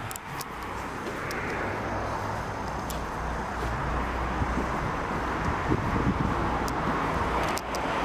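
Steady background rumble and hiss with a few faint clicks, briefly dropping out near the end.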